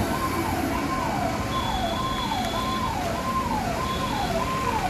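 Vehicle siren wailing in a fast, even up-and-down sweep, about three sweeps every two seconds, over the steady rumble of road traffic.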